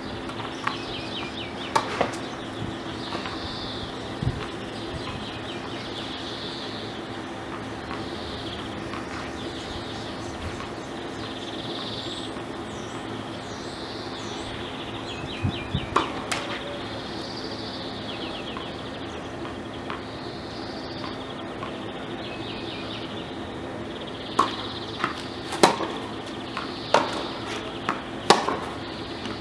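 Tennis balls being struck by rackets and bouncing on an outdoor hard court. There are a couple of hits around the middle, then a rally of sharp, quick hits near the end, over a steady low hum and a bird singing a short repeated phrase.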